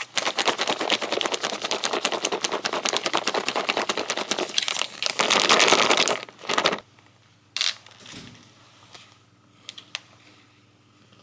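Dense crinkling and rustling for about seven seconds, swelling near the middle, then stopping and giving way to a few light clicks and taps.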